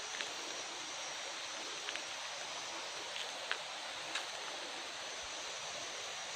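A steady rush of running water, with a few faint short ticks.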